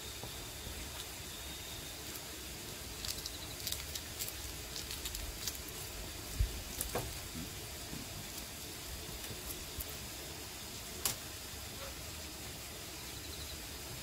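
Small scattered clicks and crackles of a boiled egg's shell being peeled by hand, most of them between about three and six seconds in, with a sharper click near eleven seconds, over a steady background hiss.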